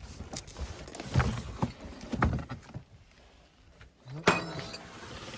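Four or so knocks and clunks of hard bike-carrier parts being handled and set down, then a short sound with a rising pitch about four seconds in.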